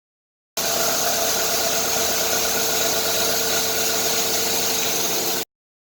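Kitamura H-400 CNC machining center milling 4330 steel: steady machine noise with several held tones over a hiss. It starts suddenly about half a second in and cuts off shortly before the end.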